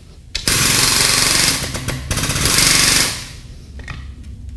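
Foot-pedal air-powered pump on a Chart Fast Track frame machine running with a loud hiss and rapid pulsing, raising its rolling scissor lift. It starts about half a second in, eases for a moment in the middle, and stops about three seconds in.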